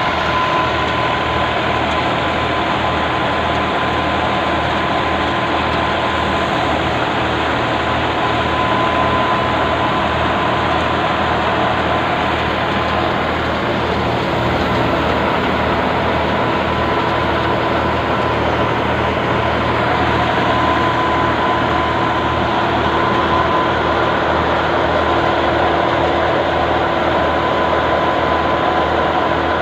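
Diesel tractor engine running steadily, driving a threshing machine through its PTO shaft, with the thresher's constant rumble and a steady high whine over the engine's low throb.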